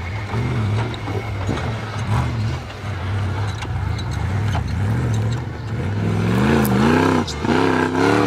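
Off-road 4x4 engine running with a low steady note, then revving up and down repeatedly from about six seconds in.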